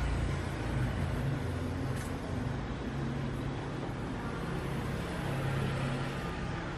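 Steady low rumble of street traffic, with engine hum rising and easing slightly but no distinct passing event.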